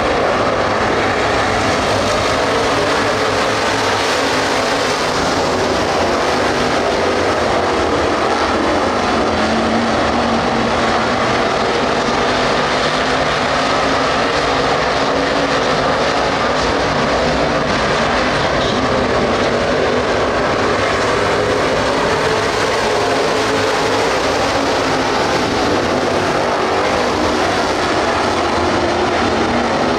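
Engines of a field of Street Stock race cars running together as they circle a dirt oval, loud and steady throughout.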